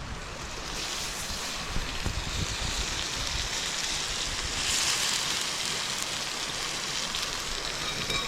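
Pork tenderloin frying in hot oil, a steady sizzle that swells about a second in and is loudest around the middle, over a low wind rumble on the microphone.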